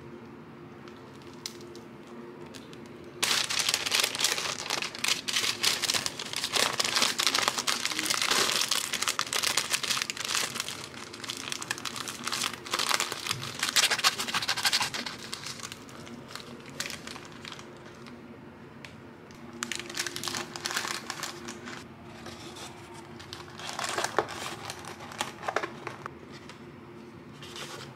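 Paper sandwich wrapper crinkling and rustling loudly for about twelve seconds as the wrapped sandwich is handled and sliced through with a knife, followed by two shorter, softer bursts of crinkling.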